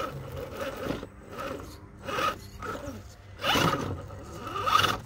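Scale RC rock crawler's brushed 540 motor and geared drivetrain whirring in four short throttle bursts as it climbs a rock; the pitch rises on the last two bursts.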